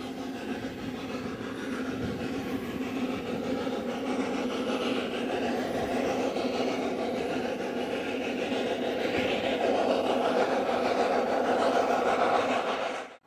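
Snowdon Mountain Railway rack train running, with a steady mechanical rumble that grows louder as it comes closer, then cuts off suddenly at the end.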